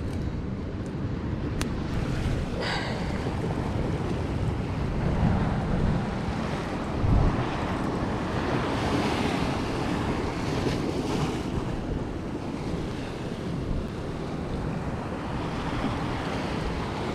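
Sea surf washing against a rocky shore, with wind rumbling on the microphone, strongest about seven seconds in.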